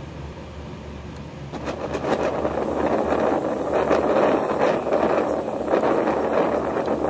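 Vehicle driving noise: a steady rush of road and wind noise that swells about a second and a half in and stays loud.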